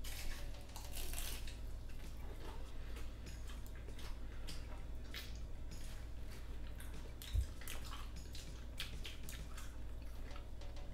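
Close-miked chewing of a hard-shell taco: irregular crunches and wet mouth smacking over a low steady hum, with a single low thump about seven seconds in.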